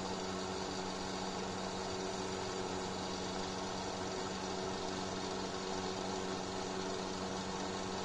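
Ningbo Singfun electric space heater running, its fan motor giving a steady hum over an even rush of blown air.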